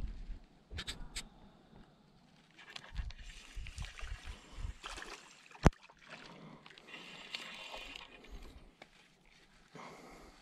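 Spinning reel being cranked as line is retrieved, with rustling handling noise and low thumps on the microphone. A sharp click about halfway through is the loudest sound.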